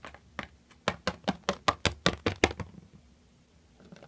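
Hard plastic toy figurines tapping against plastic blocks and a tabletop as they are moved by hand: a quick run of sharp clicks, about five a second, stopping about two and a half seconds in.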